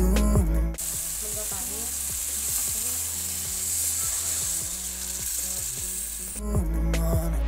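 Spiced onion-tomato masala with boiled white chickpeas frying in hot oil in a pan, a steady sizzle as it is stirred, with water poured in from a mug partway through. Background music drops out about a second in and comes back near the end.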